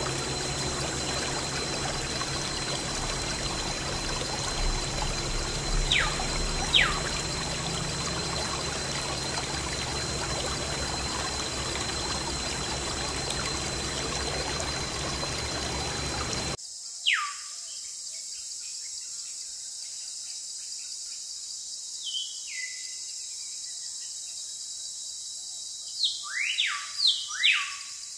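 Water pouring steadily from a small homemade water pump for about sixteen seconds, then stopping abruptly. After that come a few short whistles falling in pitch, several in quick succession near the end.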